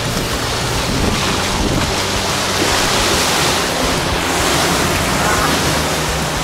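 Rushing water and a waterfall around a river-rapids ride boat, with wind buffeting the microphone: a steady loud hiss that swells a little around the middle. A steady low hum runs underneath.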